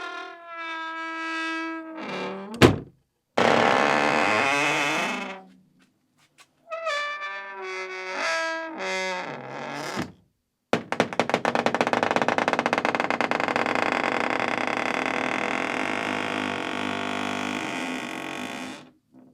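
Old wooden door creaking on its hinges through several openings and closings: wavering, pitched creaks, a loud sharp knock of the door shutting about two and a half seconds in, and from about eleven seconds a long slow creak with a rapid crackling, ratchet-like grain that stops just before the end.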